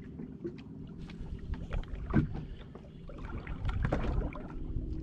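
Small fishing boat at sea: a steady low hum with wind buffeting the microphone, and scattered clicks and knocks of gear on the hull, the sharpest about two seconds in.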